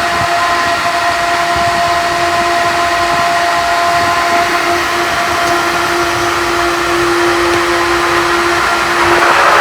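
Pool pump motor running steadily as it primes, with a steady hum and a hiss of air escaping from the filter's open air bleeder. About nine seconds in the hiss turns louder and rougher.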